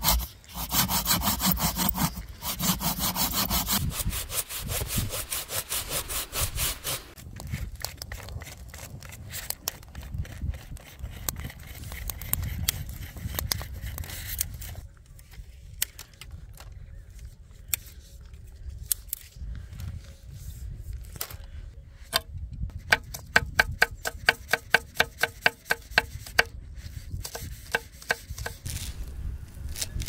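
Hand saw cutting through a log in steady back-and-forth strokes, loudest for the first several seconds and then lighter. It gives way to scattered wooden clicks and knocks, and near the end to a quick, regular run of sharp ticks, about four a second.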